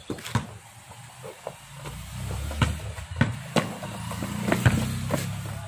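Basketball bouncing irregularly on concrete as it is dribbled. Under it, a passing motor vehicle's engine hum swells from about two seconds in and fades near the end.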